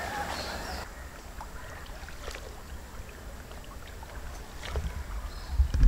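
A wooden paddle working a coracle: faint swishes and light knocks against the water and the boat, over a low rumble of wind on the microphone, with a few heavier low thumps near the end.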